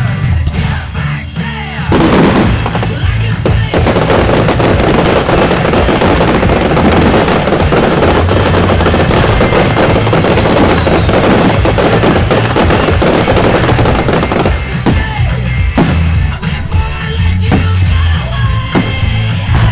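Fireworks barrage: a rapid, dense run of crackling bangs starting about two seconds in, thinning to scattered bangs after about fourteen seconds, over loud rock music with a steady bass line.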